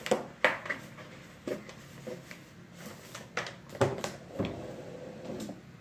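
Handling noises: several separate knocks and clicks spread over a few seconds, as of a plastic cup and other small objects being picked up and set down.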